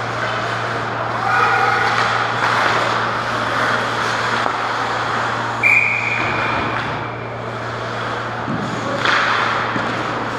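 Ice hockey play around the goal over a steady low rink hum, with a referee's whistle blown once, a little past halfway, for about a second and a half, stopping play.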